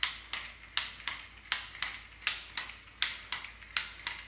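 Small LEGO robot car driving, its drive mechanism clicking steadily and rhythmically, about three sharp clicks a second with a louder one every three-quarters of a second.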